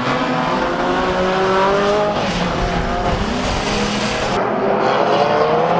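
Banger race cars' engines running hard around the track, the engine notes slowly rising and falling as the cars pass.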